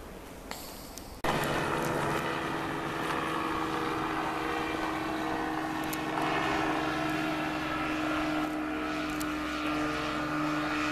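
Freshly rebuilt ZiF-77 moped engine, with a new piston, catching about a second in and running steadily at an even idle.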